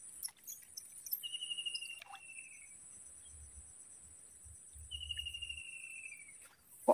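Insects chirring steadily in the background, with two falling, trilled whistled calls about four seconds apart, each a little over a second long, most likely a bird.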